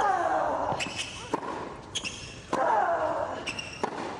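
A tennis rally: a ball struck by rackets and bouncing on a hard court, with sharp hits about once a second. Two of the hits, at the start and about two and a half seconds in, carry a player's loud grunt that falls in pitch.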